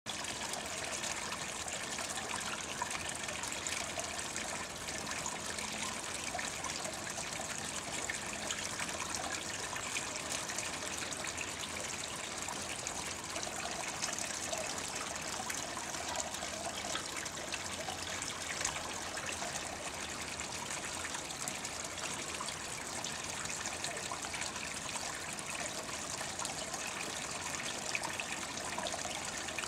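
Small solar-powered garden fountain: water spilling over a rock ledge and trickling into a pond, a steady splashing trickle.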